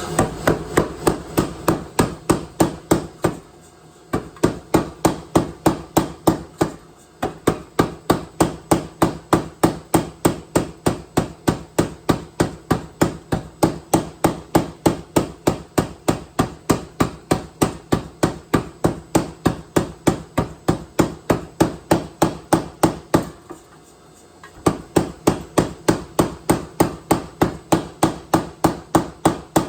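Anyang 106 self-contained pneumatic power hammer striking a hot Damascus billet in fast, even blows, about four a second. The blows stop briefly three times: near 4 seconds in, around 7 seconds and near 24 seconds.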